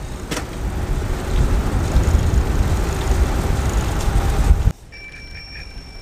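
Low rumble of wind and road noise while riding along, cut off suddenly about three-quarters in. Then a bicycle bell with an electronic-sounding tone rings steadily with two high pitches.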